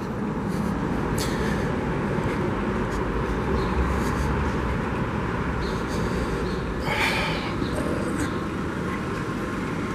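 Steady city street traffic noise, with a brief higher-pitched sound about seven seconds in.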